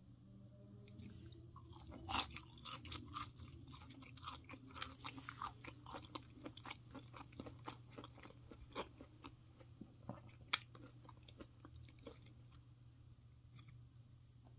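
Someone chewing crunchy battered, deep-fried Korean angelica tree shoots (dureup twigim): a quick run of crisp crunches from about two seconds in until about twelve seconds in, with a sharper, louder crunch at the start and another about ten seconds in.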